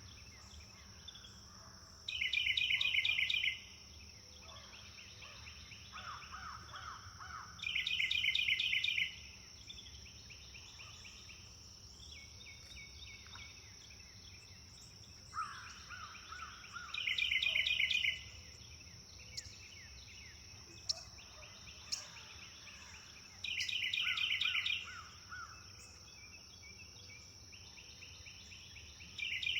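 Songbirds singing outdoors. One bird repeats a loud, quick trill about every five to six seconds. A lower, shorter trill and scattered chirps fall between its songs, over a steady high-pitched tone.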